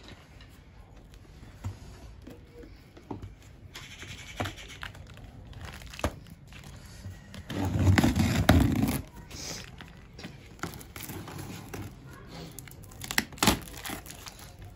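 Utility knife slicing through packing tape and a cardboard carton, with scraping, crinkling and cardboard tearing. The loudest part is a rough tearing burst a little past the middle, lasting about a second and a half, and a few sharp snaps come near the end.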